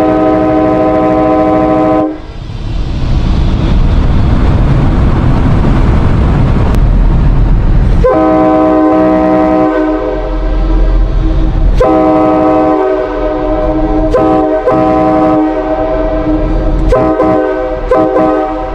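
Nathan Airchime K5LA five-chime train horn, a 1990s parts build, sounding its chord. It cuts off about two seconds in, and a loud rushing noise with no tones fills the next six seconds. Then the horn comes back in a long blast, followed by a string of shorter blasts with brief gaps.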